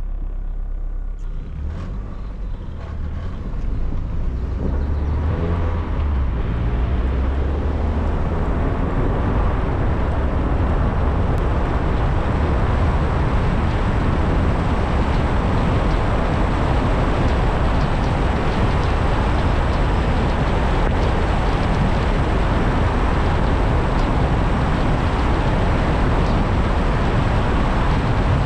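Car driving on the road: engine and road noise build up over the first few seconds as it picks up speed, then hold steady as a continuous rumble and tyre-and-wind hiss.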